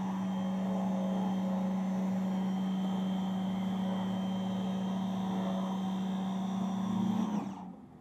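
Electric pressure washer running steadily with a hum, with water jetting from the spinning twin nozzles of a Hyper Tough 11-inch surface cleaner working over a wooden board. The sound cuts off shortly before the end.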